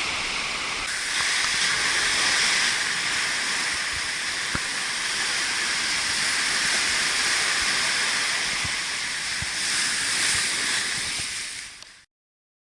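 Ocean surf washing onto a sandy beach: a steady rush of breaking waves that swells twice and fades out near the end.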